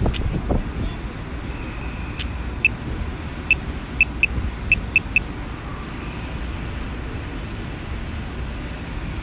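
Steady low rumble of street traffic and wind. About two seconds in, a run of about eight short, high-pitched chirps or beeps sounds at uneven spacing over some three seconds.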